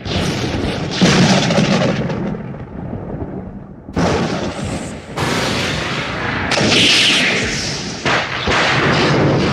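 Thunder: a run of thunderclaps, about seven in all, each starting suddenly and rumbling away over a second or more before the next.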